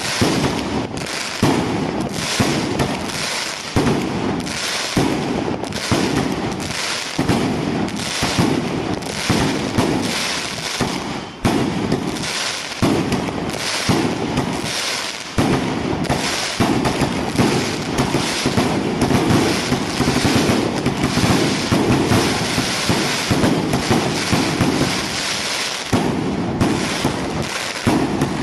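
A 2-inch, 48-shot firework cake firing shot after shot, a sharp report roughly every second, with crackling between them. In the second half the shots run together into a dense, continuous crackle.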